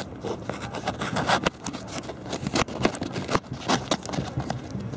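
Fireworks crackling: many sharp, irregular pops and snaps in quick succession, the sound of crackling stars bursting in the air.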